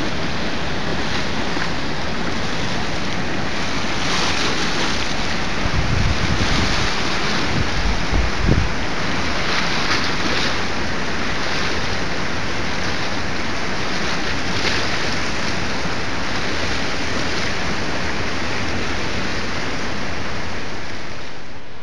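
Rapids of the St. Croix River in flood, the white water rushing steadily. Wind buffets the microphone with a low rumble from about six to nine seconds in.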